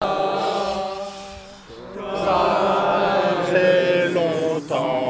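A group of rugby players chanting a sung 'shalala' together in a huddle, long held notes in unison. The singing dips briefly about a second and a half in, then swells back louder and shifts pitch a few times.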